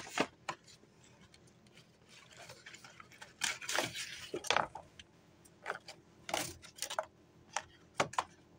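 Scattered light clicks, taps and rustles of objects and the phone being handled, irregular and spaced out, over a faint steady hum.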